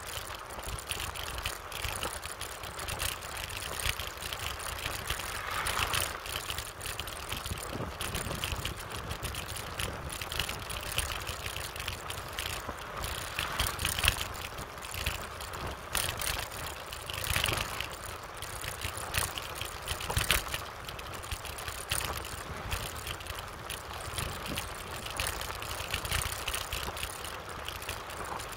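Wind rushing over the microphone and tyre rumble from a bicycle ridden at speed on a concrete road, with frequent small rattles and knocks.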